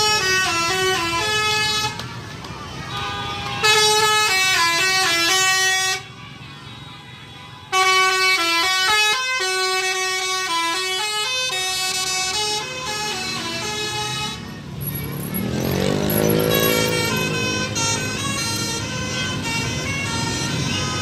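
Basuri telolet musical bus horn playing quick melodic runs of stepped notes. The first bursts break off briefly about two and six seconds in, and a longer run of tunes follows.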